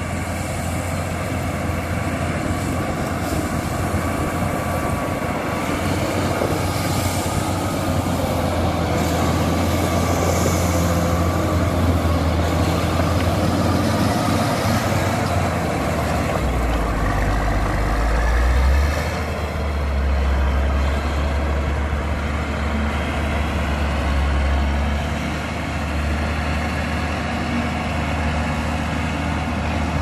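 Caterpillar motor grader's diesel engine running steadily as it pushes gravel with its blade. The low drone grows louder through the first half and is loudest a little past the middle, as the machine passes close.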